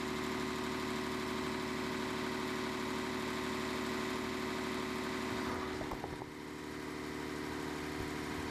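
An engine idling steadily, with a brief dip and a few clicks about six seconds in.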